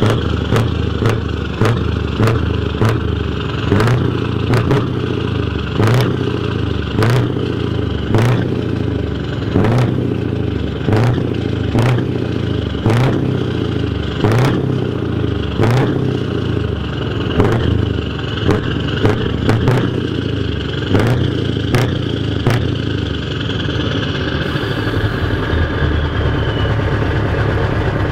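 Scania R580's 16-litre V8 idling through a straight open-pipe side exhaust: a loud, uneven, pulsing run, with sharp cracks roughly once a second and a faint falling whistle near the end.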